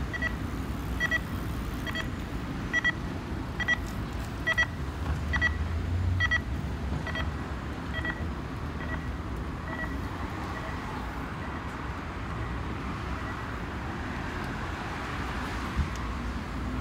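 Pedestrian crossing signal beeping about once a second, fading away after ten seconds or so, over steady city traffic noise with a car passing about five seconds in.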